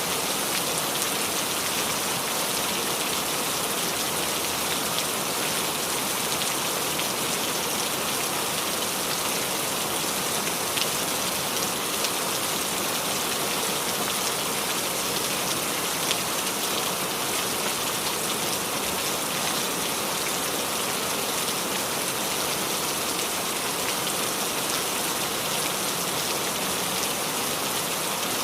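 Steady rain falling on the leaves of a small tree, an even hiss with scattered individual drops ticking through it.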